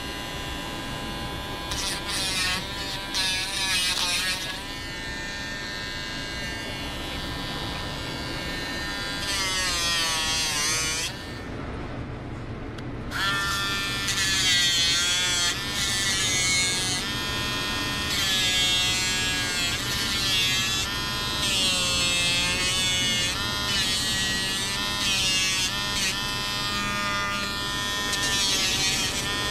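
Dremel rotary pet nail grinder running steadily as it files down a senior Bichon Frise's nails, with background music playing over it.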